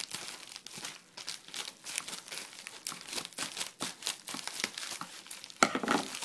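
Packaging crinkling and tearing as a shipped package is opened and unwrapped by hand: an irregular run of crackles, loudest near the end.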